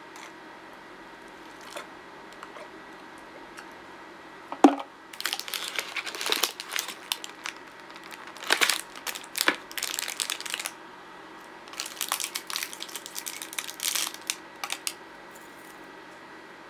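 Packaging crinkling and rustling as it is handled close to the microphone, in two bouts of several seconds each, after a single sharp knock about four and a half seconds in.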